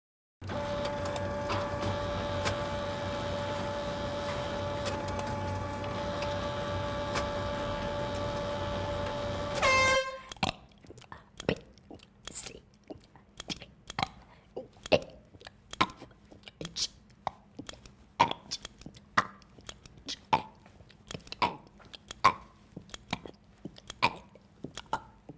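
A person belching the alphabet: a quick run of about 26 short belched letters, roughly one every 0.6 s, for the last fifteen seconds. Before it comes a steady pitched drone lasting about ten seconds, ending in a short falling glide.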